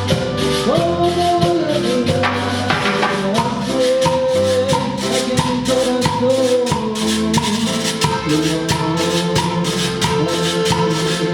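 A cumbia band plays an instrumental passage: a held melody line over bass, with a steady shaker rhythm.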